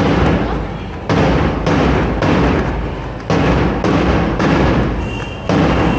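Heavy drum beats ringing out in a hall, in a repeating pattern of three quick strokes and a pause, like a march-past beat.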